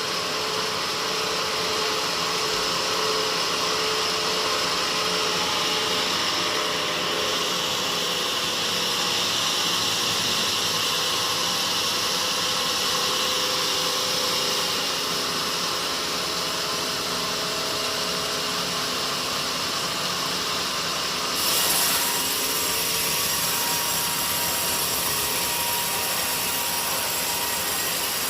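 Sawmill saw cutting steadily through a teak log. About two-thirds of the way in it briefly gets louder, and after that the sound is brighter and higher.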